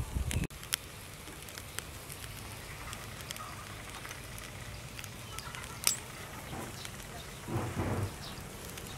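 Squid and octopus sizzling on a wire grill over charcoal: a steady hiss with scattered small crackles and pops, and one sharper pop about six seconds in. A brief low rumble joins near the end.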